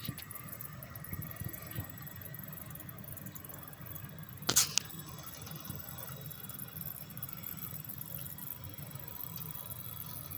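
Model train locomotives rolling along the layout track: a steady low rumble with a faint steady whine, and two sharp clicks about four and a half seconds in.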